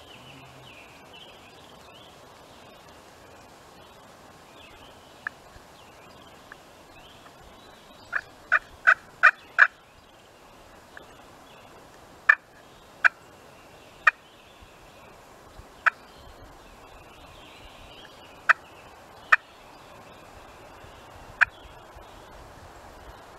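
Turkey calling: short, sharp notes in the manner of yelps and clucks. A quick run of five comes about eight seconds in, then single notes every second or two over a low background hiss of the woods.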